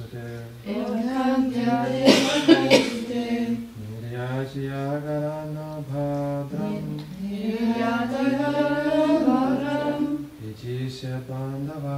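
Voices chanting a Sanskrit verse in a slow, drawn-out recitation melody, phrase by phrase, with short pauses between phrases.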